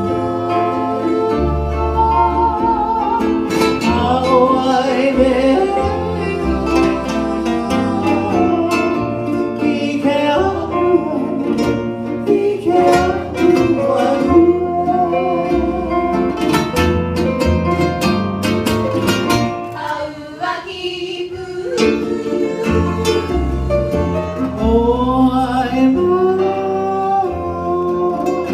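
Hawaiian-language song sung by a solo voice with plucked-string accompaniment, played live. Its bass notes run under the melody, and the music thins briefly about two-thirds of the way in.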